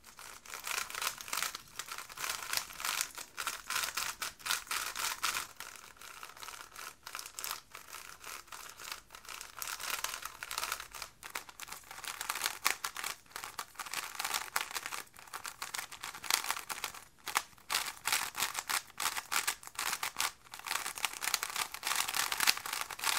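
GAN 356 M magnetic 3x3 speed cube being turned fast by hand, out of the box and not yet lubricated: a quick run of plastic clicks and scraping layer turns with a papery, sandy sound. There are a few brief pauses between runs of turns.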